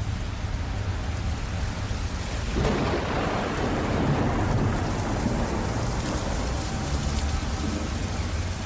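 Steady rain with a long roll of thunder that swells up about two and a half seconds in and slowly dies away.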